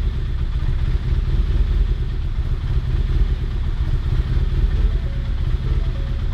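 Freshly rebuilt Ford Focus ST stroker engine idling steadily just after its first start, with a vibration the builder doesn't like.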